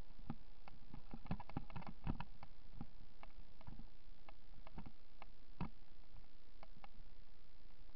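Irregular clicks and knocks over a steady hiss, densest about one to two seconds in with another sharp knock later: the rattle of a moving camera rig jolting along a rough dirt trail.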